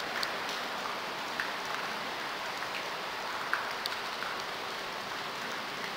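Steady, even hiss with a few faint short ticks scattered through it.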